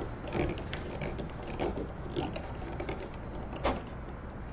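Hand screwdriver driving a screw into a small wooden block, with irregular creaks and clicks as it turns and one sharper click a little before the end.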